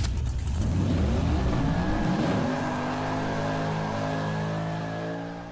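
Car engine revving up over the first couple of seconds, then held at steady high revs and fading out near the end.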